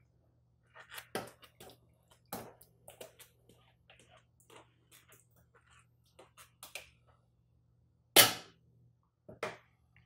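Scattered knocks and clanks of a metal food mill being handled over a stainless pot, with one loud clank about eight seconds in.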